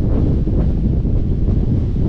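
Wind buffeting the microphone of a roof-mounted 360 camera: a loud, steady low rumble.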